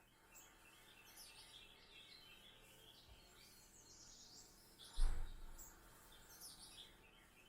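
Small birds chirping and twittering, played from a cat-entertainment video on a TV, with one dull thump about five seconds in.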